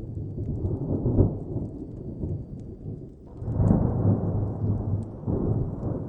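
Thunder rumbling and rolling, swelling about a second in and again more strongly from about three and a half seconds. Faint crackles of a wood fire run through it.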